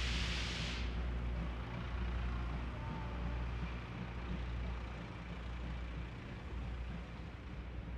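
C58 239 steam locomotive and its train moving away, a steady low rumble that slowly fades. A loud hiss carries over into the start and cuts off about a second in.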